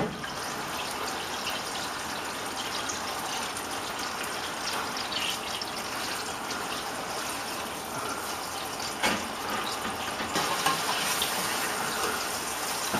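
Chicken fillets sizzling steadily in hot oil in a stainless frying pan as they are seared to seal them, with a few light knocks of a fork against the pan near the end.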